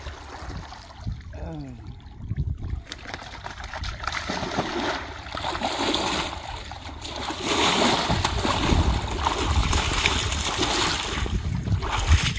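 Muddy water splashing and sloshing around people wading waist-deep and feeling for fish by hand. The splashing grows louder from about three seconds in and is heaviest near the end.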